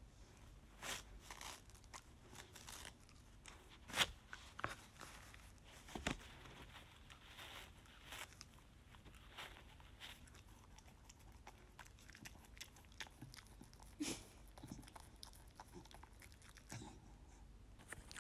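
Poodle chewing and tearing a paper tissue: faint, scattered crunching and tearing, with a few louder snaps.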